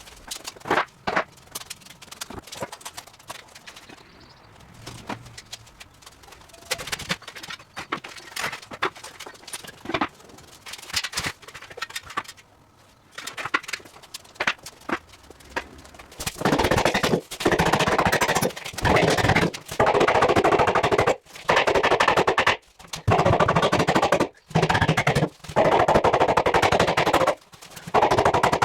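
Scattered knocks and clatter, then a little past halfway a power tool run in about eight short bursts of a second or so each, with brief pauses between them.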